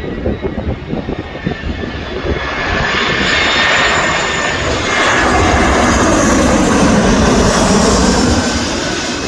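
Jet airliner passing close by: its engine noise swells over several seconds, with high whining tones over the rush, loudest about two-thirds of the way through and then easing off.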